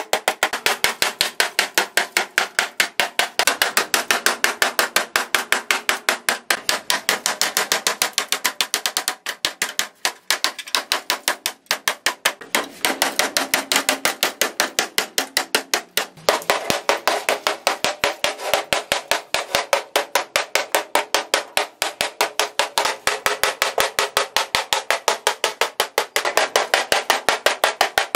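Hammer rapidly beating a rusted, fire-damaged car body steel panel, knocking off rust and burnt scale, in a steady run of metallic strikes several a second with a few brief pauses.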